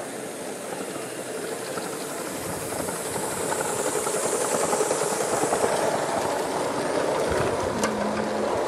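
Gauge 1 model steam locomotive and its long train of coaches running past, the wheels clattering over the track with a steam hiss. It grows louder a few seconds in as the coaches pass close by.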